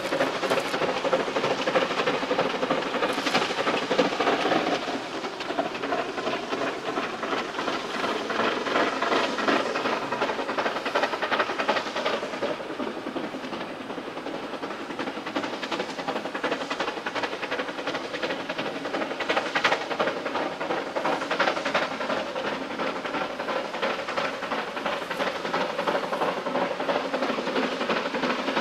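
C2 class narrow-gauge steam locomotive working along the line, a steady stream of chuffing exhaust beats with hiss of steam.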